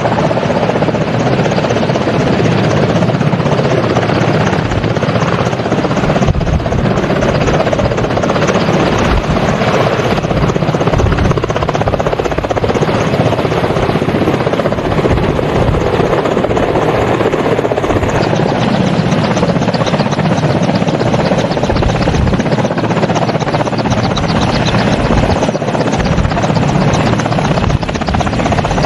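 Helicopter running steadily, its rotor chop and engine noise continuous and loud.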